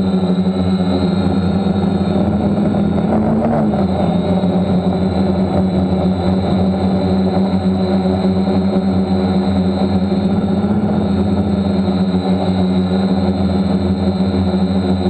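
DJI F550 hexacopter's brushless motors and propellers running steadily in flight, heard up close from a camera on its frame, a steady hum whose pitch dips briefly about four seconds in.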